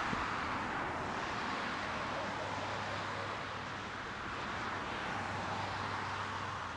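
Steady road-traffic noise, car tyres passing and slowly swelling and fading, with a faint low hum from about two seconds in.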